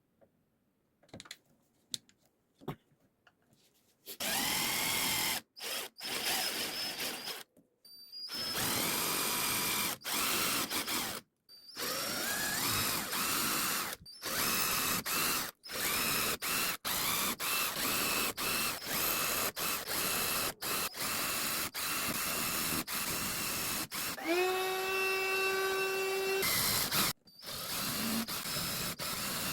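Power drill running in repeated bursts, starting and stopping many times and rising in pitch as it spins up, after a few seconds of light clicks; near the end it holds a steady whine for about two seconds.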